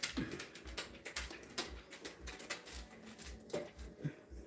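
Light, irregular crinkles and clicks of deli paper and cheese slices being handled: slices of American cheese peeled apart and laid down by hand.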